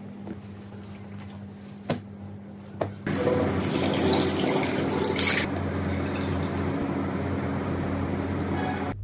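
A few light clicks, then a tap turned on about three seconds in, water running steadily into a sink until it cuts off sharply near the end.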